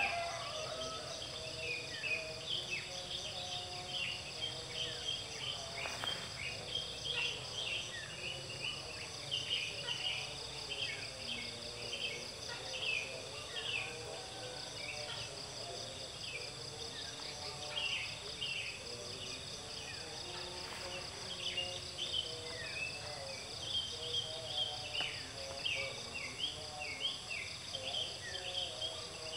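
Outdoor ambience: insects trilling steadily at a high pitch, with many short, falling bird chirps.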